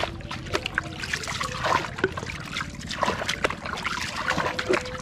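Water being bailed out of the bottom of a small wooden boat with a plastic scoop: repeated scooping and splashing, with water dribbling and trickling back down.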